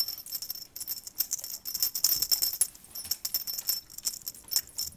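A small jingle bell rattling and ringing in quick, irregular shakes.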